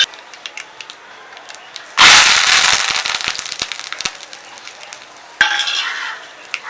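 Mustard seeds popping and crackling in hot oil in a kadai, sharp pops over a sizzle. About two seconds in a sudden loud burst of sizzling and popping sets in and fades over a couple of seconds, with a second smaller burst near the end.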